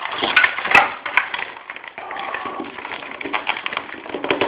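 Handling noise from fitting a stand-in phone into a bent-wire helmet mount: three sharp clicks in the first second or so, then irregular crackly rustling.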